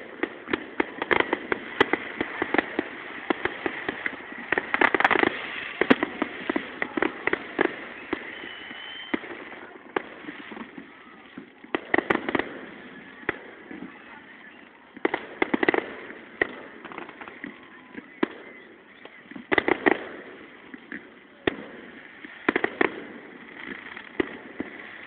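Aerial fireworks exploding: clusters of sharp bangs and crackles that come every few seconds, with a continuous rumble between them.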